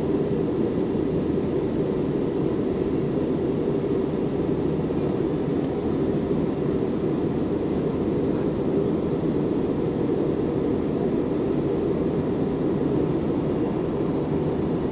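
Steady cabin drone of an Airbus A320-family jet airliner in the climb after take-off: even engine and airflow noise, deep and unbroken, with no change in level.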